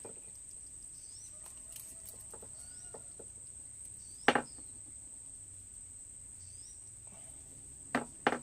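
Steady high-pitched drone of crickets or similar insects, with a few short chirps. Sharp clicks or knocks sound once about four seconds in and twice close together near the end.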